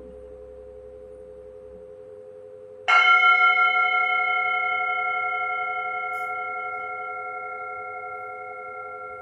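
Metal singing bowls ringing: a low steady tone with a slow wobble, then about three seconds in a bowl is struck and rings with several bright overtones that slowly fade.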